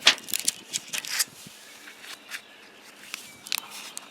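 Short clicks and rustles of the ceramic stick-on weld backing squares and their packaging being handled, a quick cluster in the first second or so, then a couple of single clicks later.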